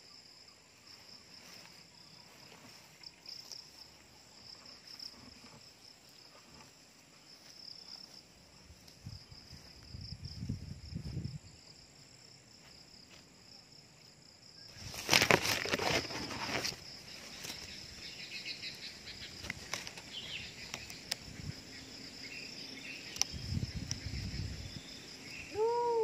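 Steady, high, pulsing insect chirring in the background. About fifteen seconds in comes a loud burst of rustling and knocks, with softer low rumbles of handling noise from the camera raised on the bamboo pole.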